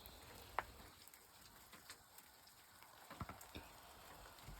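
Near silence with faint, scattered crackles and ticks, a few at a time, most of them about three seconds in.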